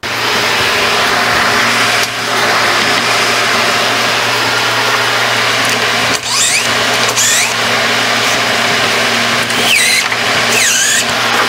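A motor-driven machine running steadily with a constant low hum, with short high squealing glides about six seconds in and again about ten seconds in.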